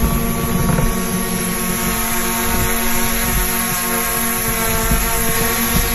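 Small camera drone's propellers whirring steadily as it hovers low, a loud hum of several steady tones.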